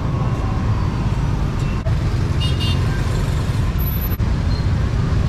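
Busy street ambience: a steady low rumble of passing traffic.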